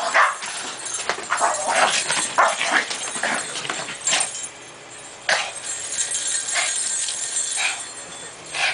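Two small dogs, a Japanese Chin and a Chin–Shih Tzu cross, barking in short calls as they play-fight. The calls come in a quick run over the first few seconds, then singly about once a second.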